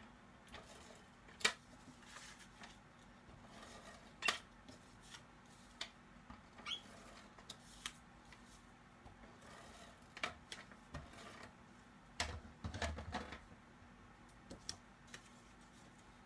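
Cardstock and paper being handled on a craft mat: scattered light taps, slides and rustles as the pieces are pressed and positioned, with a brief flurry of taps and a soft thump near the end.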